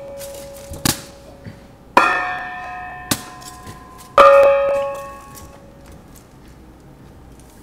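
Small hand-held metal cymbal hung from a cord, struck twice about two seconds apart. Each stroke rings with several clashing tones and fades over a second or so. Sharp single clicks fall before and between the strokes, and a faint ringing tone dies away in the first two seconds.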